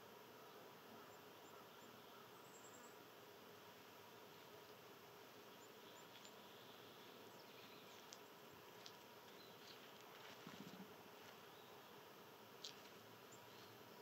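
Near silence: faint outdoor ambience with a steady faint hum and a few soft ticks near the end.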